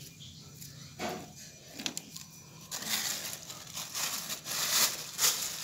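Feathers being pulled by hand from a dead chicken: irregular rustling, tearing strokes that grow denser and louder about halfway through.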